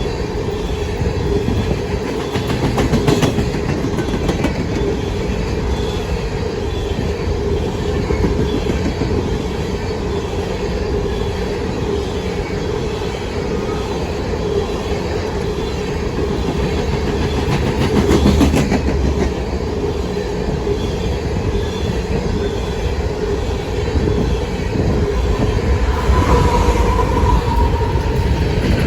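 Empty coal hopper cars of a freight train rolling past, with steady wheel-on-rail rumble and clatter. A brief wheel squeal near the end.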